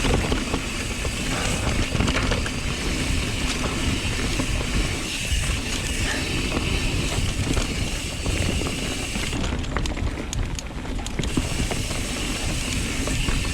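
Mountain bike descending a steep dirt trail at speed: tyres rolling over dirt and roots, the chain and frame rattling over bumps, and the rear freehub clicking while coasting, with wind buffeting the microphone.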